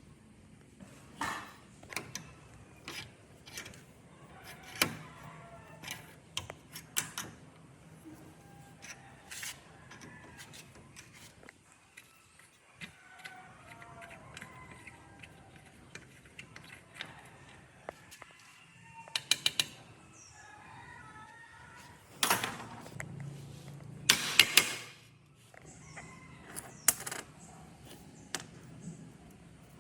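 Small metal parts and hand tools being handled during repair work: scattered clinks and knocks, a quick run of four clicks near the middle, and the loudest knocks and clatter in the last third.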